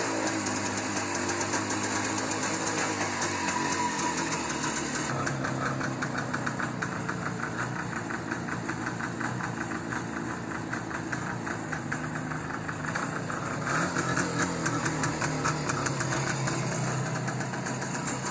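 IMZ M-62 motorcycle's flat-twin engine running just after starting: the revs settle down within the first second into a steady idle, then pick up again about fourteen seconds in.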